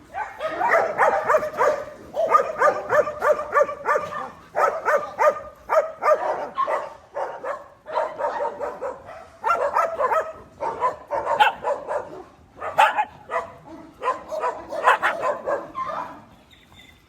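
Dogs barking in rapid runs of several barks a second, broken by short pauses.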